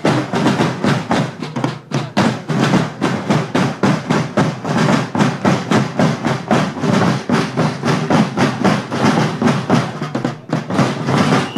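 A group of guild drummers beating wooden rope-tensioned field drums together in a fast, steady rhythm of dense strokes, with a brief break about ten seconds in before the beating goes on.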